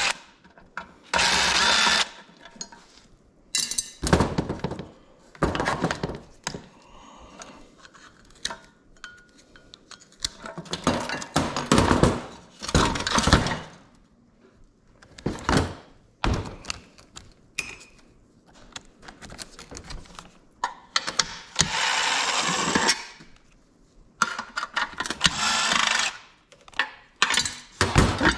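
Metal light fixtures being dismantled with tools: irregular bursts of tool noise lasting a second or two, among knocks, thunks and metal clatter.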